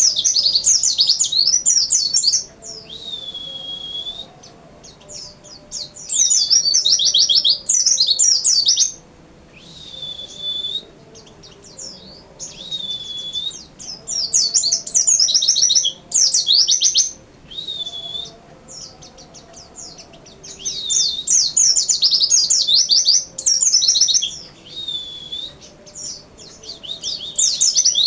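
A white-eye (pleci) singing: bouts of fast, high twittering trills a second or two long, repeated over and over, with a single drawn-out whistled note between some of the bouts.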